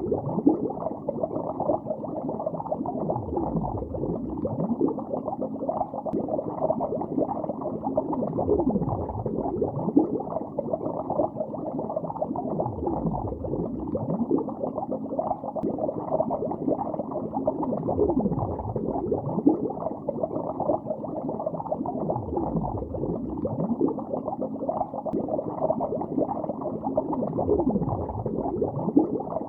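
Steady, muffled underwater bubbling of a lake, with dense small bubble pops and a low sweeping swell that comes round about every four and a half seconds.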